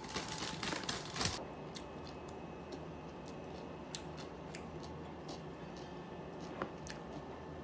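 Brief rustle of a torn paper sachet, then quiet room tone with a few sharp light clicks of chopsticks against a glass food container.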